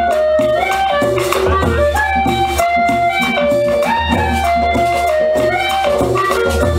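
Latin American dance music: a stepping melody with plucked strings over a steady, pulsing bass and drum beat, played for a folk dance.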